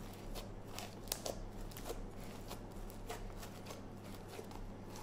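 Sticky homemade slime with plastic fake snow mixed in being kneaded and pressed by hand, giving irregular soft crackles and squishes.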